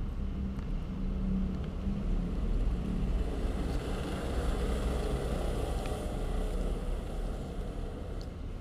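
Steady low rumbling background noise that swells slightly in the middle, with a few faint ticks.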